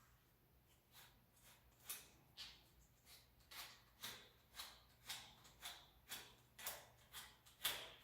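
A series of short, sharp scraping or rubbing strokes from hand work on a bicycle inner tube during puncture repair, sparse at first and then about two a second.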